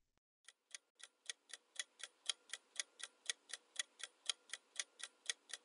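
Countdown timer sound effect: a clock ticking steadily, about four ticks a second, starting about half a second in.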